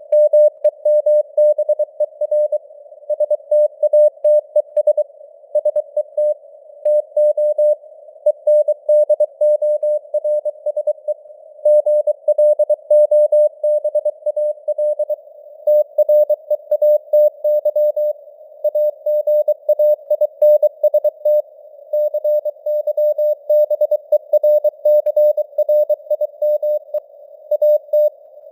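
Morse code (CW) sent as a single-pitch tone keyed on and off in dots and dashes at 23 words per minute, spelling out news text, over a hiss of simulated radio band noise around the tone.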